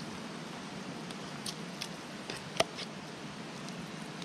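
Wet kimchi being scooped with a spoon from a plastic tub into a pot of broth, with a few light clicks of the spoon, the sharpest about two and a half seconds in, over a steady hiss.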